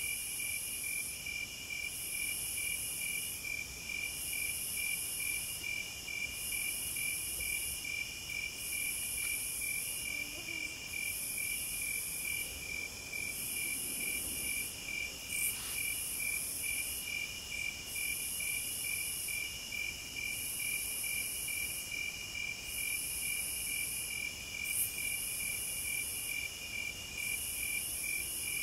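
Crickets chirping steadily in two overlapping rhythms: a high trill in long pulses about every second and a half, over a lower, faster regular chirping. There are a couple of faint clicks, one about halfway through.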